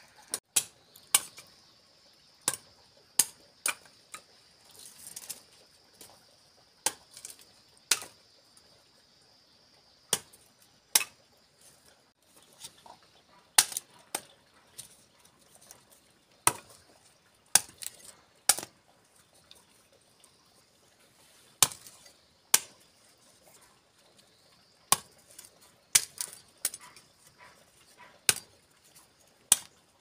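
Machete chopping cassava stems into short planting cuttings: sharp, irregular strikes, often two in quick succession, with pauses of a second or more between them.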